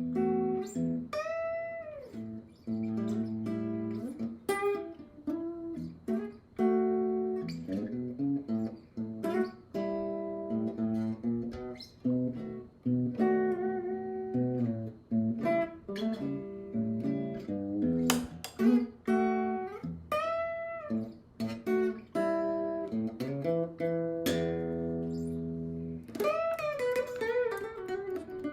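Guitar played in a bluesy style, plucked single notes and short chords with several notes bent up and back down in pitch.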